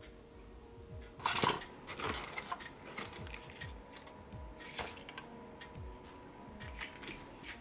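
Objects being handled by hand: a few sharp clicks and rustles, the loudest about a second in, over faint background music.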